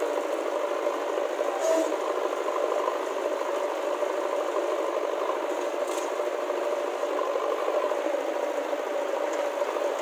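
JCB backhoe loader's diesel engine running steadily under load while the backhoe arm digs.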